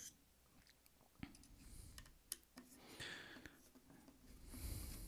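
Faint handling sounds from the opened Square Terminal as fingers pry at its internal board and shields: a few sharp clicks, then soft scraping and rubbing.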